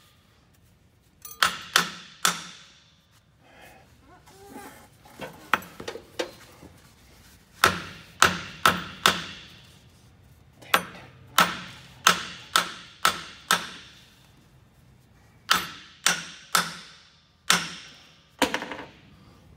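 A hammer striking the steel driveshaft U-joint and yoke of a heavy truck's power divider input. About twenty sharp, ringing blows come in bursts of three to seven, knocking the U-joint into place in the yoke.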